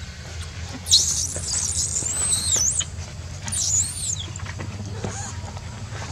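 Baby macaque screaming in distress: two high-pitched, wavering cries, a long one starting about a second in and a shorter one a little later.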